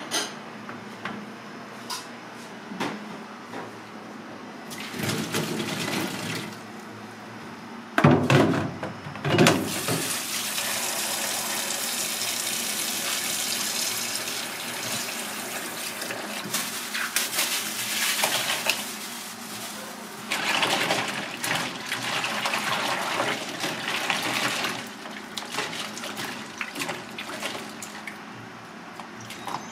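Tap water running onto boiled octopus tentacle slices in a plastic colander, splashing as hands rub and turn the pieces. Two loud short bursts about eight seconds in, then a steady stream that eases off near the end.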